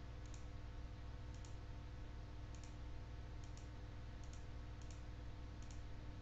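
Computer mouse clicking: faint, short clicks, mostly in quick pairs, about once a second, over a low steady hum.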